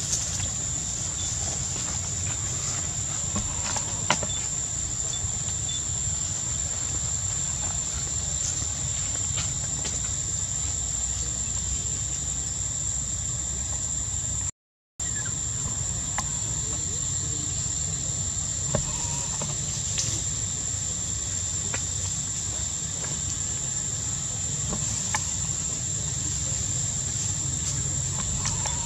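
Insects droning steadily at one high pitch, over a low rumble; the sound drops out for a moment about halfway through.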